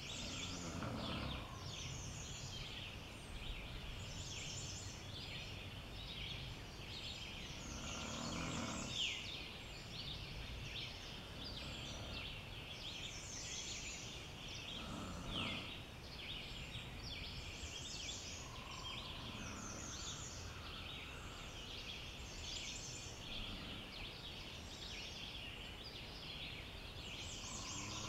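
Dawn chorus of forest songbirds: many overlapping high chirps and trills. Beneath them a lower bird call comes in five or six times, several seconds apart.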